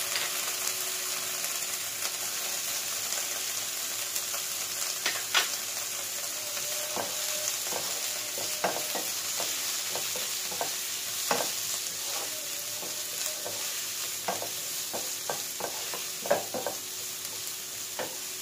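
Diced carrot and capsicum sizzling steadily in oil in a nonstick pan, being sautéed. A wooden spatula stirs them, tapping and scraping the pan now and then, more often after the first few seconds.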